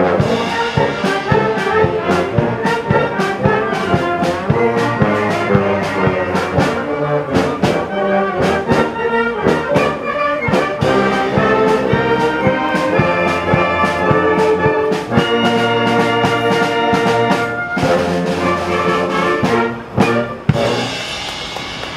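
Brass band playing, with a tuba bass line and a steady drum beat under the brass chords. The music stops near the end.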